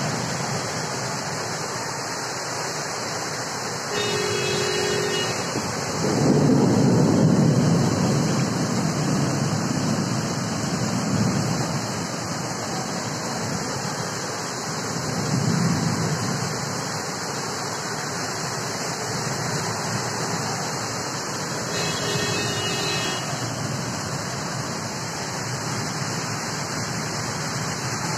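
Storm rain and wind making a steady rushing noise, with a low rumble swelling up about six seconds in for several seconds and again briefly around fifteen seconds in. A short tone sounds twice, about four seconds in and again near twenty-two seconds.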